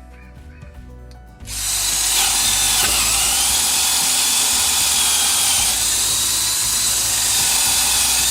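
Hamilton Ultimate cordless drill starting about a second and a half in and running at high speed. Its motor whine dips briefly in pitch soon after it starts.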